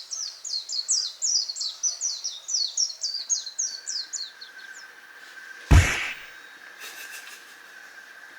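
A bird singing a rapid run of short, falling chirps, about five a second, that stops about four and a half seconds in. About a second later comes a single loud thump, with a faint steady high tone underneath.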